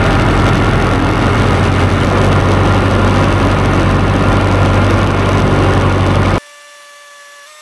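John Deere 2030 tractor's diesel engine running loud and steady under load, pulling a heavily loaded manure spreader. About six seconds in it cuts off abruptly, giving way to a much quieter steady whine.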